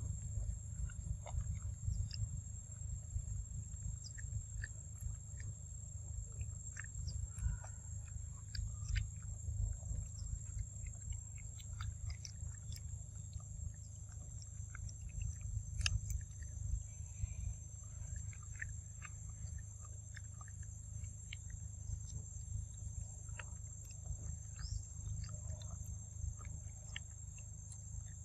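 Macaques chewing and munching ripe papaya, with many small wet clicks and smacks scattered through, over a steady low rumble and a constant high insect-like drone.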